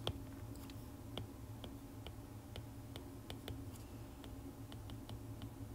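Stylus tip tapping and clicking on an iPad's glass screen during handwriting: faint, irregular light ticks a few times a second.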